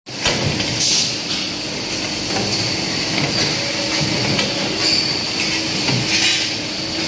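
Automatic CNC pipe bending machine running through its bending cycle: a steady hum with clanks and knocks every second or two as the clamps and bend head move on the tube.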